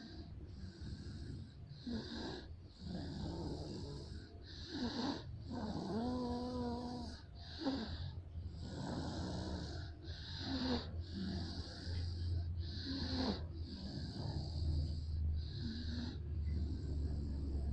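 Someone asleep and snoring: a run of noisy, hissing breaths about one a second, with one longer pitched, wheezing snore about six seconds in.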